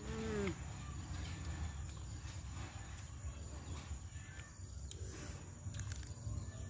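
Faint eating sounds: soft smacking and clicks of chewing and of roasted pork being torn by hand, over a steady drone of insects and a low rumble. A short hummed voice sound comes at the very start.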